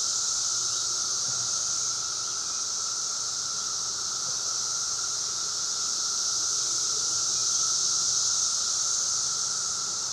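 Chorus of periodical cicadas: a steady, unbroken, real loud high-pitched droning buzz from many insects at once, with a lower steady whirring tone under it.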